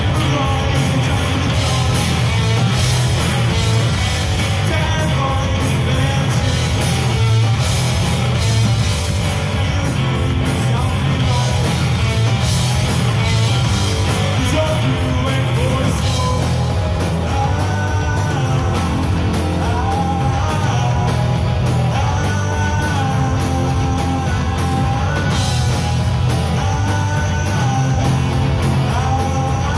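Three-piece rock band playing live and loud: distorted electric guitar, bass guitar and drum kit. A sung vocal comes in about halfway through.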